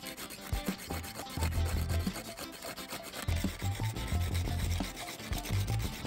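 A black carbon rod scraping back and forth across sandpaper, grinding it to powder: a dry, rasping rub in repeated strokes.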